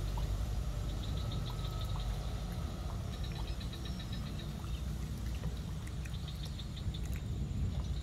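Rapid, high-pitched ticking trills of small calling animals, coming in runs of a second or two, several times over, above a steady low rumble.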